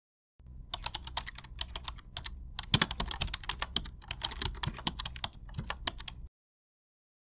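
Typing on a computer keyboard: a quick, irregular run of key clicks that cuts off suddenly near the end.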